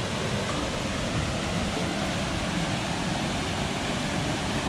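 Rushing water, a steady even rush with no breaks.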